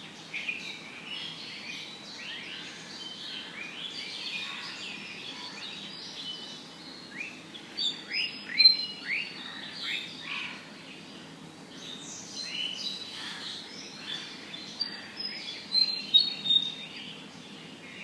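Several birds chirping in a morning chorus: many short chirps and quick falling notes overlapping, with louder bursts of chirping about halfway through and near the end, over a faint steady background hiss.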